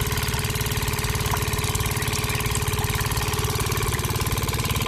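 A small engine running steadily at idle, with a fast, even pulse.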